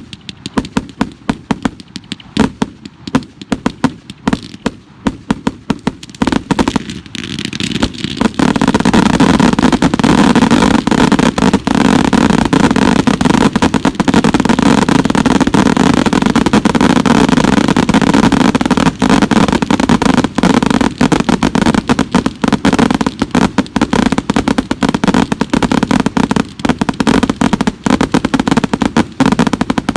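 Consumer fireworks going off: rapid separate cracks and pops at first, then from about eight seconds in a dense, continuous loud crackling with sharp snaps through it.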